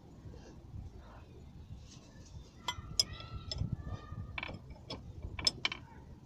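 Irregular metal-on-metal clinks and knocks from hand tools and bolts against a gearbox mount being fitted, several of them ringing briefly. The loudest come about three seconds in and again near the end.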